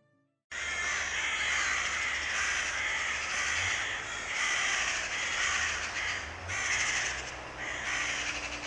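A flock of carrion crows cawing together in a loud, dense chorus of overlapping harsh caws that swells and eases in waves, cutting in suddenly about half a second in. This is the mass alarm cawing crows use to mob an intruder until it leaves.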